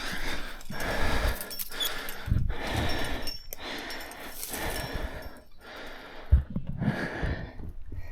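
A person breathing hard in steady, noisy breaths, close to the microphone, with rustling and a single low knock about six seconds in.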